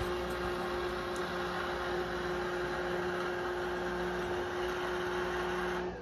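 Roomba i7+ robot vacuum running, a steady motor-and-brush hum with a constant tone, which cuts off suddenly near the end as the robot settles onto its Clean Base dock.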